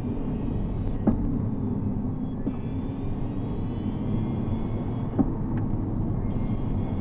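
Tesla Model S 85 drive unit running at about 30 km/h, heard inside the cabin over steady road rumble: a whine of several high tones that drift slightly in pitch, the "circle saw" drive unit noise. Two light knocks, about a second in and near five seconds.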